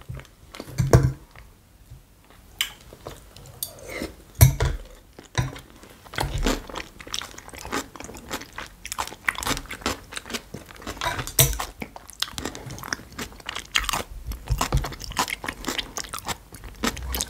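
Mouth sounds of eating: chewing, with many crisp crunches as a mouthful of fresh raw-vegetable salad is bitten and chewed. The crunches come thicker in the second half.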